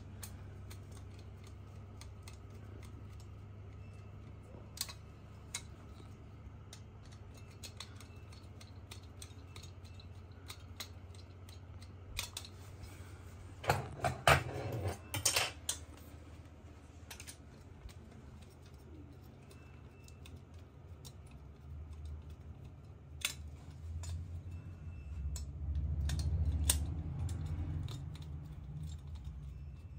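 Small metal clicks and rattles of a hand screwdriver driving bolts into the steel bracket arms of a TV wall mount, with the steel parts knocking together as they are handled. A burst of louder clattering comes about halfway through and more knocks near the end.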